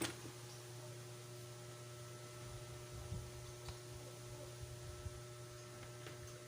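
Steady low electrical mains hum, with a few faint clicks of parts being handled as the drill housing is taken apart.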